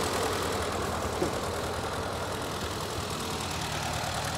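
Ford 860 tractor engine idling steadily.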